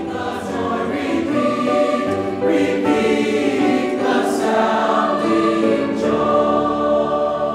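Choir singing sustained chords.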